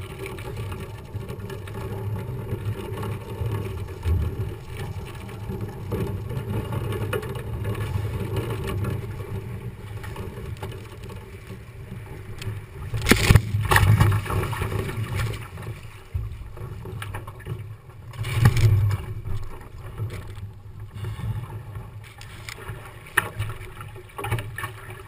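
Wind and water noise on a foiling International Moth sailing dinghy, picked up by a camera mounted on the boat: a steady low rumble of wind buffeting the microphone, with water rushing past. Two louder surges of noise come about halfway through and again a few seconds later.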